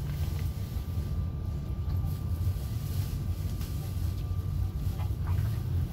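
Interior noise of a ZiU-682G-016 trolleybus: a steady low hum with a faint, steady high whine over it.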